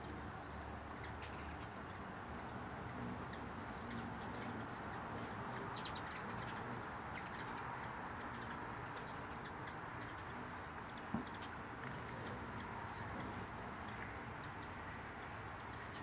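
Insects trilling steadily and high in the background, with a few short high chirps from hummingbirds at the feeders, about five seconds in and again near the end. A faint click about eleven seconds in.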